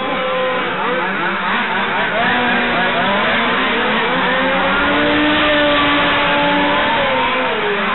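Several small two-stroke petrol engines of 1/5-scale RC touring cars racing together, each rising and falling in pitch as the cars brake for the corners and accelerate out, their whines overlapping.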